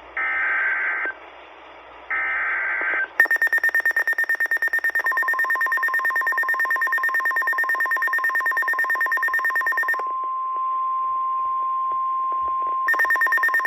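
Emergency alert tones: three bursts of screeching digital SAME header data, about a second each, announcing a tornado warning. Then a fast, high beeping alarm, joined about five seconds in by the steady 1050 Hz NOAA Weather Radio warning tone, which carries on alone after the beeping stops near ten seconds; the beeping comes back near the end.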